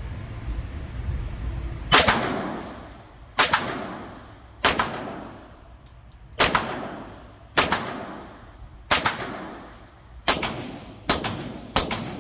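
Nine suppressed 9mm shots from a B&T carbine fitted with a B&T RBS SQD suppressor, firing subsonic rounds one at a time, roughly one every one to two seconds, starting about two seconds in. Each sharp crack is followed by a short ringing echo off the indoor range walls.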